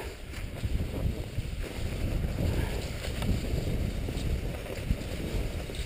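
Wind rumbling on the camera microphone over the hiss of cross-country skis gliding along a snowy track.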